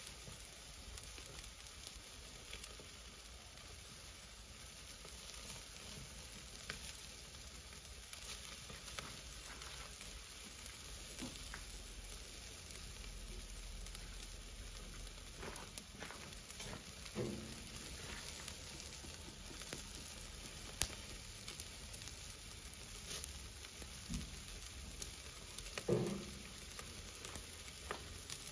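Chicken drumsticks sizzling on the grate of a charcoal grill over hot coals: a steady hiss with scattered small crackles. A sharp click and a couple of short, louder sounds come in the second half.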